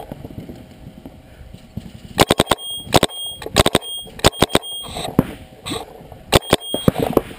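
Proto Reflex Rail paintball marker, set to 12.5 balls per second semi-auto, firing rapid strings of shots in several bursts starting about two seconds in, each burst a quick run of sharp pops.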